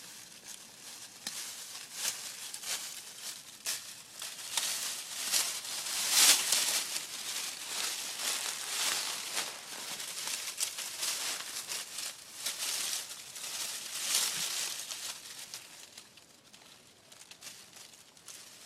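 An animal chewing on a young tree: irregular crunching and crackling of wood and leaves, busiest around six seconds in and tapering off near the end.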